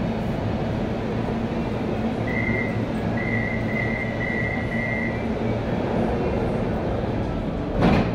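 Metro train standing at the platform with a steady low hum. About two seconds in, the door-closing warning sounds as a string of high beeps: one, then four in a row. Near the end the sliding doors shut with a loud thump.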